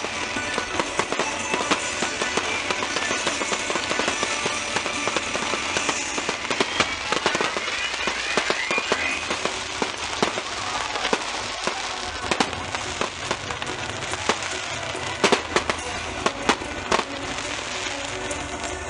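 Fireworks going off: a dense, steady crackle from sparkling ground fountains and aerial bursts, broken by many sharp bangs, with a cluster of the loudest bangs late on.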